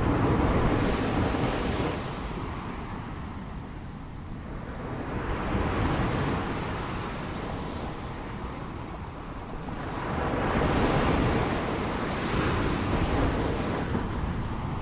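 Ocean surf: waves breaking and washing up, then drawing back. The rush of water swells and fades in slow surges, about three in the span.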